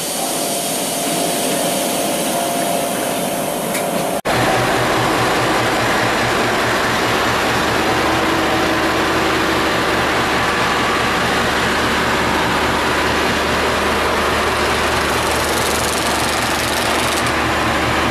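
V/Line N-class diesel-electric locomotive's EMD 12-645 two-stroke V12 diesel idling close by, a steady, even low throb. It begins abruptly about four seconds in, after a few seconds of quieter steady hum beside the stopped passenger carriages.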